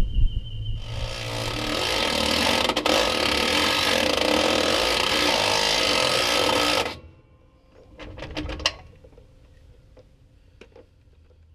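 DeWalt cordless driver with a socket running the bolts of a chrome rear differential cover: one long run of about six seconds that cuts off sharply, then a few short bursts about two seconds later.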